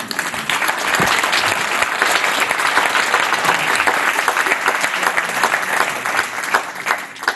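Audience applauding, many hands clapping together; it swells over the first second, holds steady and dies away near the end.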